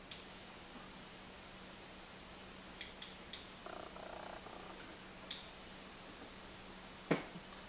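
Airbrush blowing a steady hiss of compressed air, cut off briefly twice as the trigger is let go, with a sharp click near the end.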